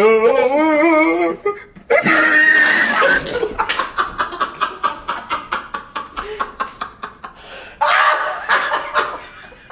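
Men bursting into laughter: a wavering held vocal sound at first, then a short sputtering spray about two seconds in as water is blown out of a mouth, followed by hard, rapid laughing.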